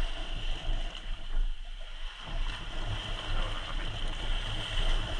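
Steady shoreline noise of water and wind, a hiss over an uneven low rumble that rises and falls.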